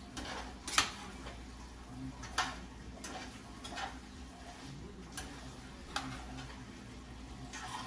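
Sharp irregular ticks and taps from a pot of chicken cooking on the stove, about one a second, over a faint steady low hum.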